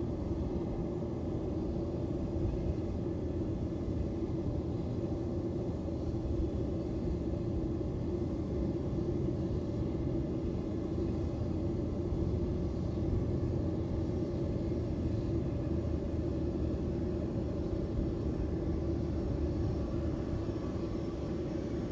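Bombardier Challenger 300 business jet's turbofan engines running steadily at low power, a constant low rumble with a steady hum.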